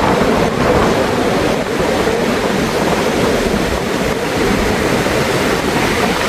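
Rough sea surf washing in steadily, with wind rumbling on the microphone.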